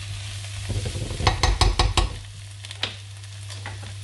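Mushrooms, cherry tomatoes and onion sizzling in a non-stick frying pan as they are stirred with a silicone spatula. A quick run of sharp knocks comes between about one and two seconds in, then a single one shortly after.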